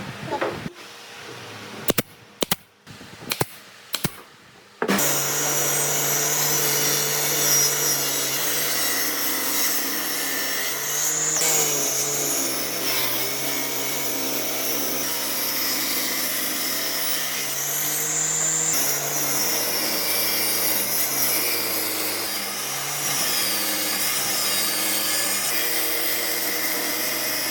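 A few sharp knocks, then about five seconds in a power tool starts and runs steadily on wood, its pitch shifting and wavering under load in the second half.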